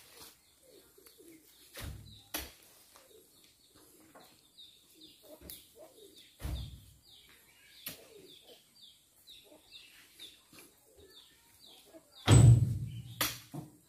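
Oil palm fruit bunches thudding into a dump truck's bed as they are pitched up one at a time on a pole, a few seconds apart, with the heaviest thuds near the end. Between the thuds a bird chirps faintly in quick repeated notes.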